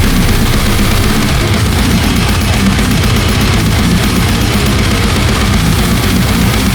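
Deathgrind music: heavily distorted electric guitars and drums, loud and dense without a break.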